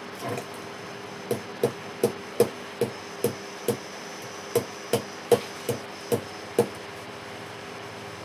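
Repeated hammer-like strikes, about a dozen at two to three a second, each with a short ring, over a steady background hum.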